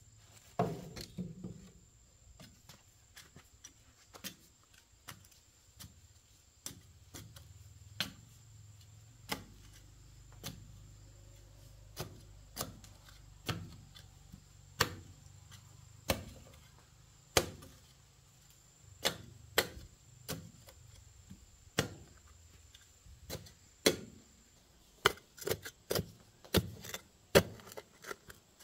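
Irregular sharp knocks, roughly one a second, coming faster and closer together near the end.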